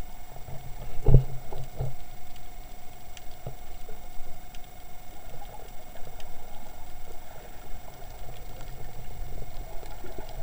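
Underwater sound picked up through a GoPro's waterproof housing: a muffled low rumble of moving water with scattered knocks and bumps, a loud thump about a second in, and a faint steady tone underneath.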